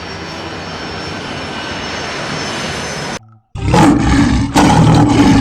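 Sound-effect examples of loud sounds: a steady rushing noise that grows slightly louder for about three seconds, then, after a brief gap, a very loud, deep roar in two bursts.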